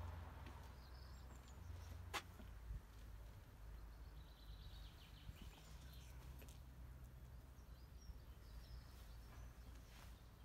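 Faint outdoor ambience: a low steady rumble with scattered small bird chirps, and one sharp click about two seconds in.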